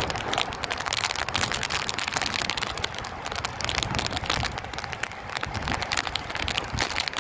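Gusting cyclone wind buffeting the phone's microphone with a crackly rumble, over the steady wash of rough surf breaking on the beach.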